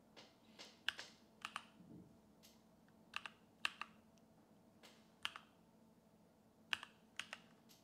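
About a dozen faint keystrokes on a computer keyboard, unevenly spaced, as digits are typed one at a time.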